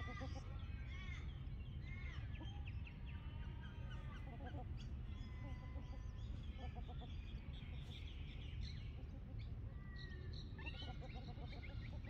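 Several birds calling: many short chirps and rising-and-falling whistles overlap, with a few quick chattering runs, over a steady low rumble.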